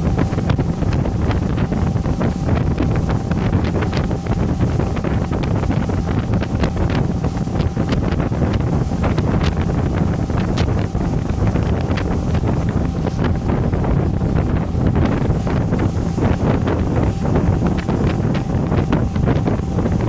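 Wind buffeting the microphone hard over the steady drone of a motorboat running at speed, with water rushing in its wake.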